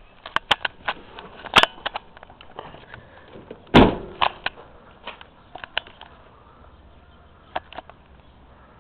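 Rocker switches on a light-control switch box clicking, a single loud thump about four seconds in as the pickup's door is worked, then a few scattered knocks.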